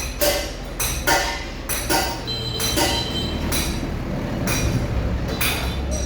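Metal tools striking and clinking against metal engine parts: a string of irregular ringing knocks, roughly one a second, over a low steady hum.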